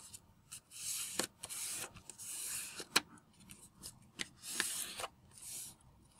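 Fingers rubbing and pressing a folded sheet of origami paper flat against a table, setting its creases: several short papery swishes with a few sharp ticks.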